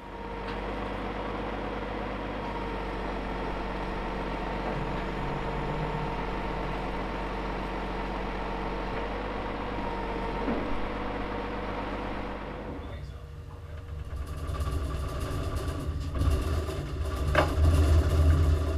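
The winch of a tilt-bed recovery lorry runs steadily as it hauls a small diesel locomotive up the steel ramp, a constant mechanical hum. About thirteen seconds in, the sound gives way to a lower, uneven engine rumble with a few sharp knocks near the end.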